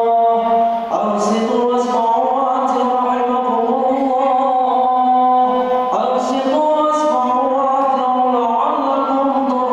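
A man chanting Arabic in long, drawn-out, ornamented notes with only short breaths between phrases. This is the bilal's sung recitation that introduces the Friday sermon.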